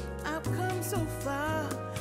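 Background pop song: a sung melody over bass and a steady drum beat.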